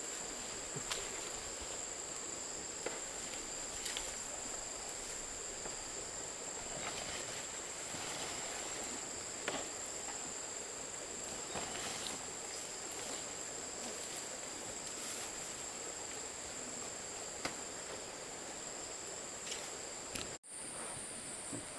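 Insects, crickets or cicadas, droning steadily on one high-pitched tone, with a few faint clicks. Near the end the sound drops out for a moment and comes back as a higher insect tone.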